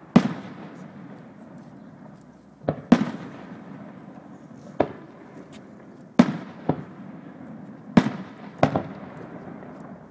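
Aerial fireworks shells bursting: about nine sharp bangs at uneven gaps of one to two seconds, some in quick pairs, each trailing off in a rolling echo over a steady low rumble.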